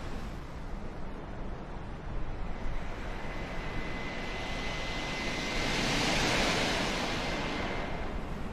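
Jet aircraft passing: a rushing roar that builds to a peak about six seconds in and then eases off, with a thin steady whine running through the loudest part.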